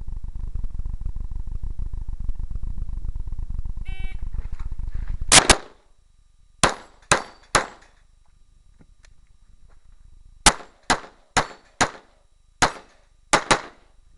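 9mm Glock 17 pistol firing a practice stage: a short shot-timer beep about four seconds in, then about twelve shots in three strings (a quick pair, then three, then seven) with pauses between. A steady low rumble runs under the first five seconds and cuts off at the first shots.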